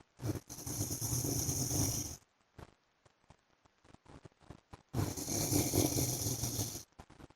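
A sleeping man snoring: two long snores of about two seconds each, a few seconds apart, each a low rattling snore with a breathy hiss over it.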